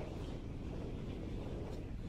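Wind buffeting the microphone: a low, fluctuating noise.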